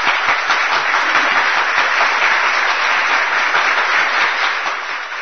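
Applause from a seated audience, many hands clapping together, tapering off near the end.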